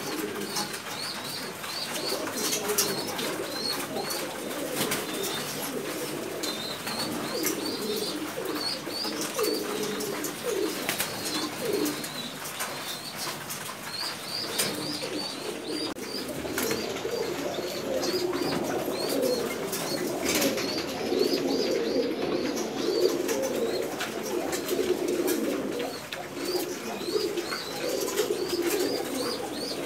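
A loft full of domestic pigeons cooing continuously, many birds overlapping, with scattered sharp clicks and runs of short high chirps over it.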